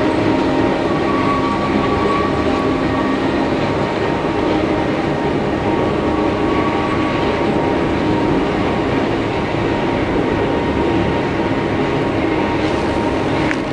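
Oigawa Railway Ikawa Line passenger train running along a viaduct: a steady running noise with a faint whine through it.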